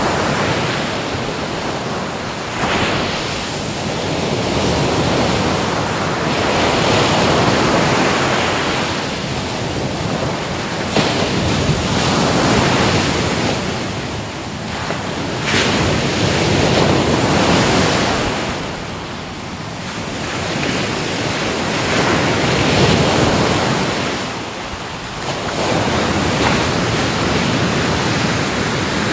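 Ocean waves breaking and washing in, a continuous surf noise that swells and ebbs every few seconds, with some wind on the microphone.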